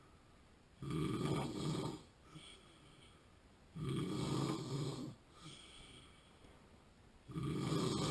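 A man snoring in his sleep: three loud snores about three seconds apart, each lasting a little over a second. This is the snoring of a sleeper with sleep apnea.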